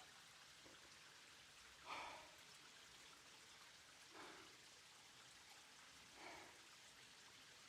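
Near silence: a faint steady hiss, with three soft short sounds about two seconds apart.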